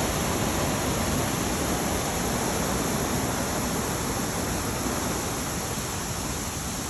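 High-pressure water blasting out of a burst underground water main through the broken roadway: a steady, dense rush of spray that eases slightly toward the end.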